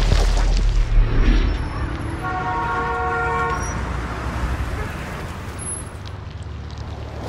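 A deep low rumble with two loud hits about a second in gives way to a car horn sounding steadily for about a second and a half, followed by a low, even street hum.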